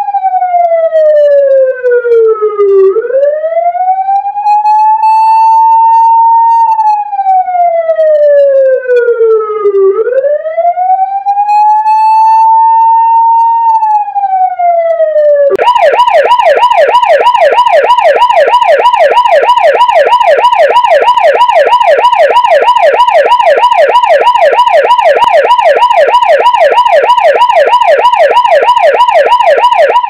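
North American SI-100-M electronic police siren. It first sounds the wail, three slow cycles in which the pitch slides down and then swings quickly back up and holds. About halfway through it switches abruptly to a rapid, continuous yelp.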